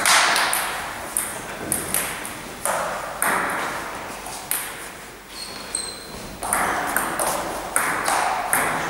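Table tennis ball clicking off bats and the table in quick rallies, each hit ringing with echo in a gym hall. The clicks stop for a moment around the middle between points, then a new rally starts.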